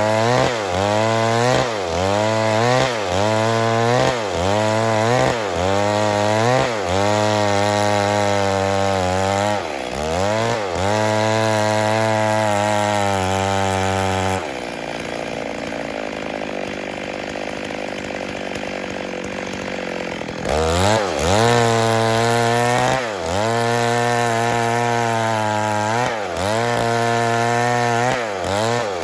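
Stihl MS 382 two-stroke chainsaw running hard under load as it cuts wood, its engine note dipping and recovering again and again, a little more than once a second. About halfway through it runs steadily for a few seconds, then goes quieter and more even for about six seconds before the dipping pattern returns.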